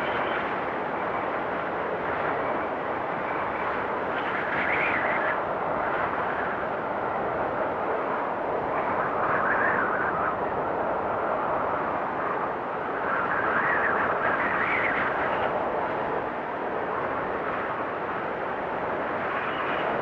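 Strong wind blowing in a snowstorm: a steady rushing with gusts that swell up about four, nine and fourteen seconds in.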